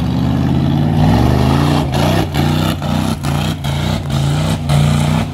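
Off-road mud-bogging vehicle's engine revving hard. About two seconds in the throttle starts pumping in repeated bursts, the pitch climbing and dropping roughly twice a second with brief sharp cuts.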